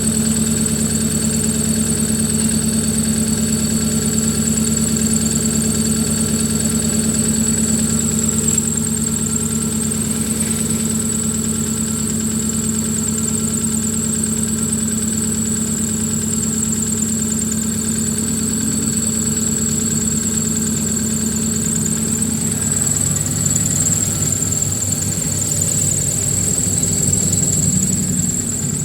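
Hyundai Atos Prime's petrol engine idling cold after start-up, holding steady revs, a sign that it is running smoothly and in tune. A thin high-pitched tone runs steadily over the idle.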